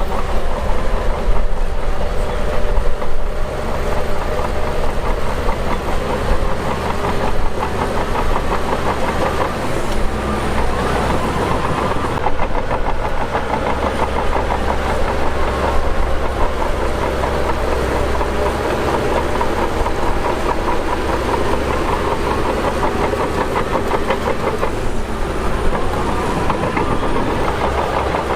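Shantui DH17 bulldozer's diesel engine running steadily, working as the dozer moves earth.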